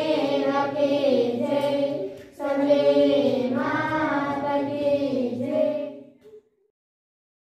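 A group of girls singing a Hindu devotional aarti together. They break off briefly about two seconds in, sing one more phrase, and the sound cuts to silence about six seconds in.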